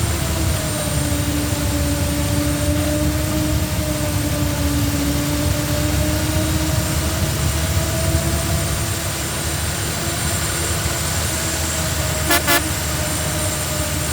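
CLAAS Jaguar self-propelled forage harvester running: a heavy diesel rumble with a steady hum that sags slightly in pitch and recovers. About twelve seconds in, two short horn toots.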